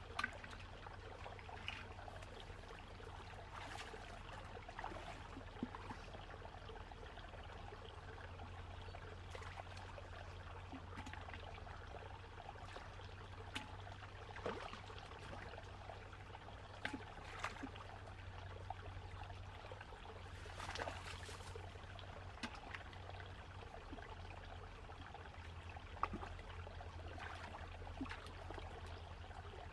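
Shallow rocky stream trickling, with scattered small splashes and knocks as hands feel through the water among the stones. A steady low hum runs underneath.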